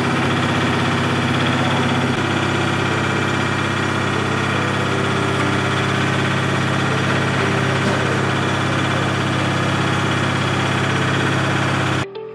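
Rotary drying machine running steadily, a constant engine-like drone with a strong low hum; it cuts off abruptly at the very end.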